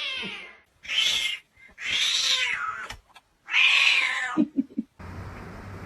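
A cat meowing loudly: three drawn-out meows, each falling in pitch at the end, then a few short low grunts.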